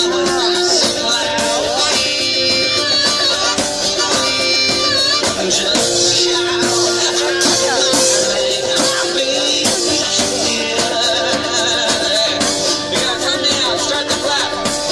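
One-man band playing live: strummed acoustic guitar over a steady drum beat that he plays with his feet on a home-built kit, with a voice singing over it.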